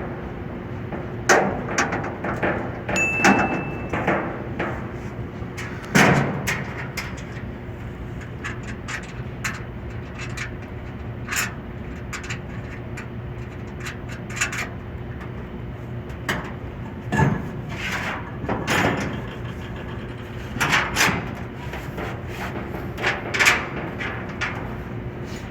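Irregular knocks and clanks of tools against the metal fittings of an exhaust fan motor being mounted and adjusted, over a steady low hum.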